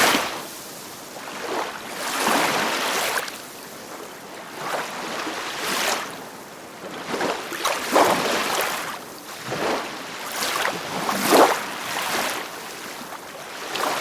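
Small sea waves lapping and splashing, swelling and falling away every second or two, with a couple of sharper splashes.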